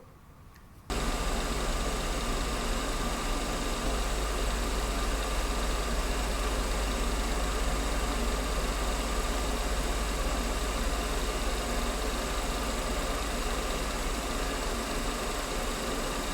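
Schaublin 102 watchmaker's lathe running steadily, with a strong low motor hum and a whine over it. It starts suddenly about a second in.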